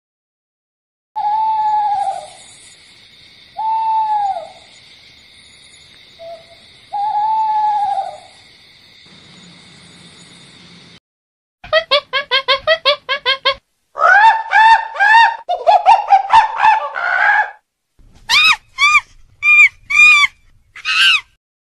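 An owl hoots three times, each hoot a single arching note about a second long, over a faint steady hiss. Past halfway, monkeys take over with loud, rapid series of calls, about four a second at first, ending in a handful of shrill rising-and-falling screeches.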